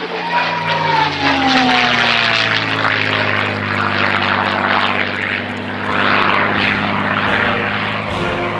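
Propeller airplane engine droning, its pitch falling over the first two or three seconds as it passes by, then holding a steady drone.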